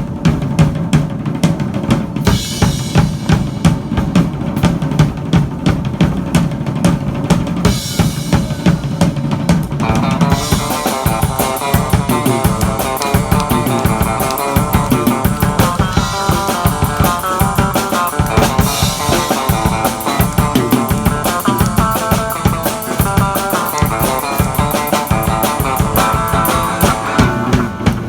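A drum kit and an electric guitar, a Telecaster through a small tube amp, playing loud rock together, with steady kick and snare hits throughout. About ten seconds in, the guitar part gets brighter and busier.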